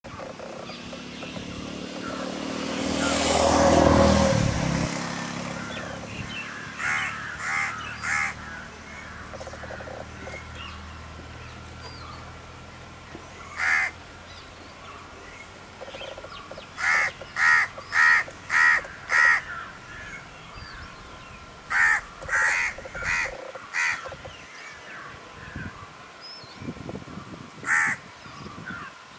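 Crows cawing: short harsh calls in groups, three about seven seconds in, a run of five around seventeen to nineteen seconds, three more around twenty-two seconds, and single calls between. Near the start a broad rush of noise swells to a loud peak about four seconds in and fades away.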